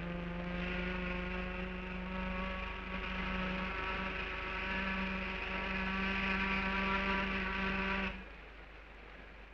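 A ship's horn sounding one long, steady blast that cuts off suddenly about eight seconds in, over a low steady hum.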